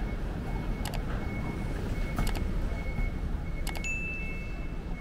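Urban street ambience: a steady low rumble of traffic, with three sharp metallic clinks and a faint high ringing tone that grows brighter near the end.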